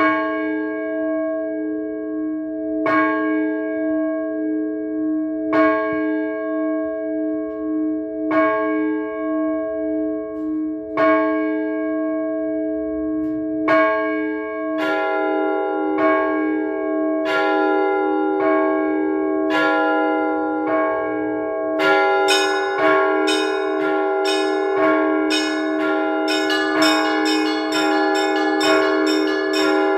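Orthodox church bells rung by hand to call worshippers to service. A bell is struck about every three seconds and left ringing; about halfway through more bells join, and in the last third small high bells chime in quickly, several strikes a second, over the deeper ones.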